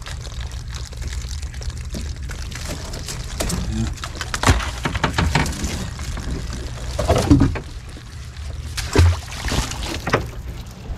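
Seawater pouring and dripping off a wet crab net as it is hauled into a small boat, with several knocks and splashes, the loudest about seven seconds in, over a steady low rumble.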